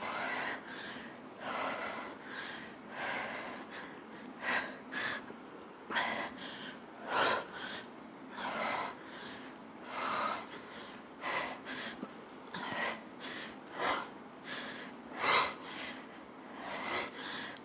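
A woman breathing hard under exertion: short, noisy breaths about once a second, in time with the effort of each repetition.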